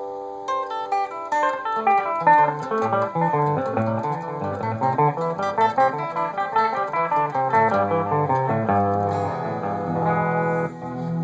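Electric guitar played clean through an Alesis NanoVerb digital effects processor and an Epiphone Futura 4x10 amp, heard through a phone's microphone. It plays a quick run of picked single notes, then a short break near the end before new held notes.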